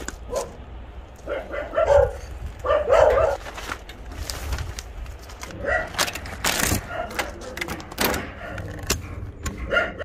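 Dogs barking and yipping in several short bunches, loudest about two to three seconds in, over sharp crackling and tearing of plastic sheeting being pulled off a wire kennel fence.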